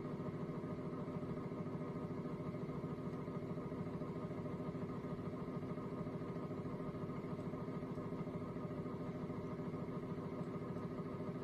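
CSM (Anton Paar) TRB3 tribometer running at full speed in linear reciprocating mode, its stage driving the sample back and forth at 7 Hz under a 6 mm alumina ball: a steady mechanical hum with several tones and a fine rapid flutter.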